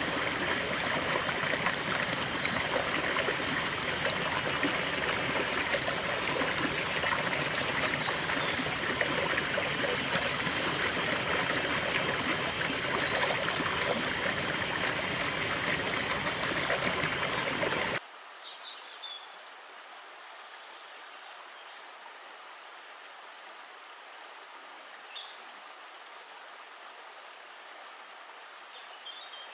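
River water rushing steadily, an even hiss. About two-thirds of the way through it cuts off suddenly to a much quieter outdoor background with a few short, high bird chirps.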